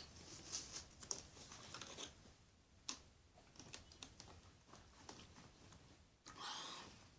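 Near silence: room tone with faint scattered clicks, and a brief soft hiss about six seconds in.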